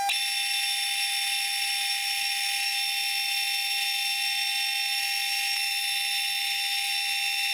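Milling machine running and centre-drilling a steel hub, its sound sped up eight times into a steady high-pitched whine.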